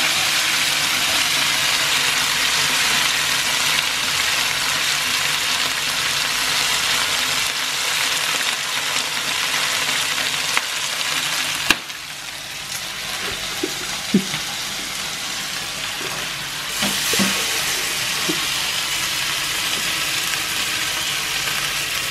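Chicken pieces sizzling in margarine in a non-stick frying pan over a very low gas flame. There is a sharp click about halfway through, after which the sizzling is quieter.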